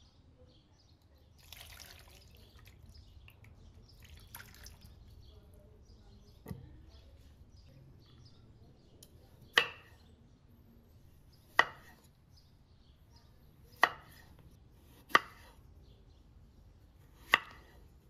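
Water poured from a metal jug splashing over a potato in a plastic bowl, in two short pours near the start. Then a kitchen knife slices a peeled potato into rounds on a wooden cutting board: five sharp knocks of the blade on the board, about two seconds apart.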